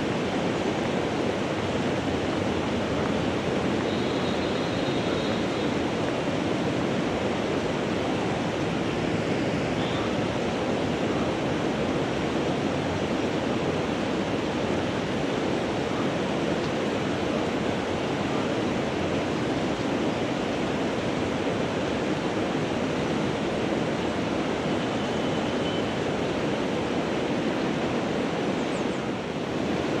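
Steady rushing of river water, an even, unbroken noise with no change in level.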